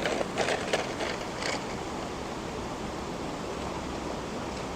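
A plastic toy truck with its load clatters and knocks a few times in the first second and a half as it is set moving, over a steady rushing background noise that runs on alone after that.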